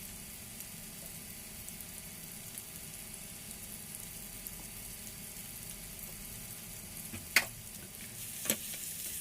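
Sliced sujuk sausage and onion frying in oil in a pan, a steady sizzle as they brown. Two sharp clicks sound near the end, about a second apart.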